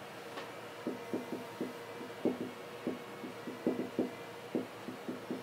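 Dry-erase marker writing small characters on a whiteboard: a string of short, irregular taps and scrapes as the tip strikes and lifts off the board, a few to several a second.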